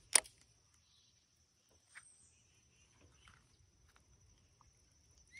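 A single sharp click just after the start. Then a faint, steady, high-pitched whine like an insect's, with a few brief bird chirps, one near the end.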